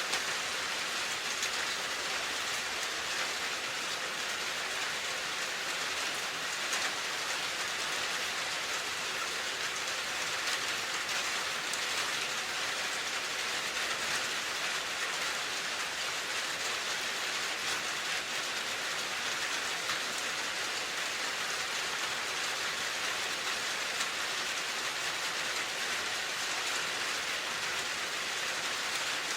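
Steady, dense rain falling and pattering on surfaces, an even hiss with fine drop ticks that does not change.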